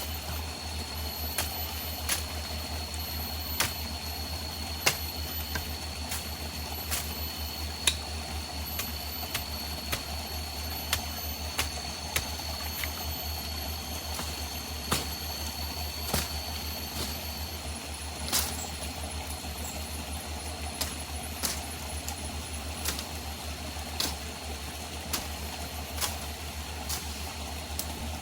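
A forest stream running, with a steady high insect drone that stops about two-thirds of the way through. Sharp knocks or clicks come at irregular intervals, about one a second.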